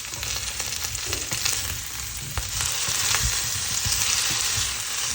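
Potato pieces sizzling in hot oil in a pan on medium heat, the hiss growing louder about halfway through, with a few light knocks.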